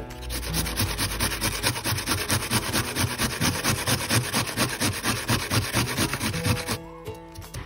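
A peeled onion rubbed quickly up and down a metal box grater, a rapid scraping of about four or five strokes a second that stops shortly before the end.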